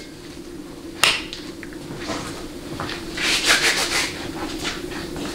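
Hands handling parts on an aluminium transmission case: one sharp click about a second in, then rubbing and rustling with several light clicks around three to four seconds in.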